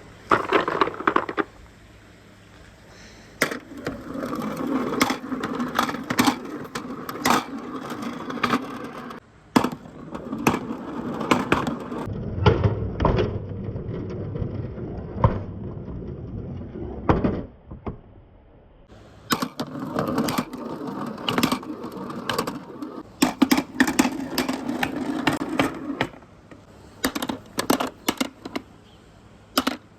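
Marbles rolling along a handmade marble run track: a steady rolling rumble broken by many sharp clacks as they strike the track and each other, with a deeper rumble around the middle.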